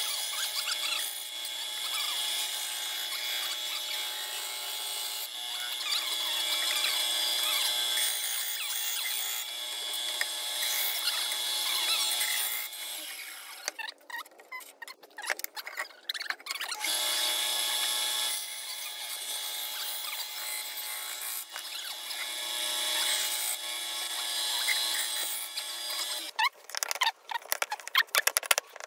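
Band saw running and cutting a curved profile in a wooden board, in several stretches. About halfway through and again near the end the saw sound stops briefly, leaving light handling knocks.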